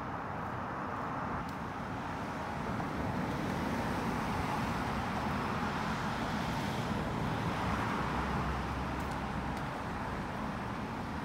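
A car passing on the road: steady tyre and engine noise that swells over several seconds and then fades.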